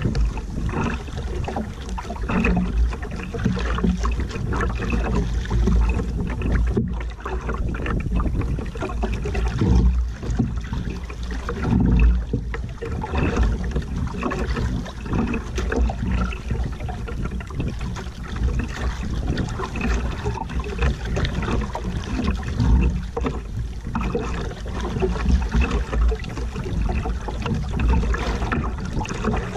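Sea water sloshing and splashing against the hull and outrigger floats of a small outrigger canoe in choppy water, with an uneven low rumble of wind on the microphone.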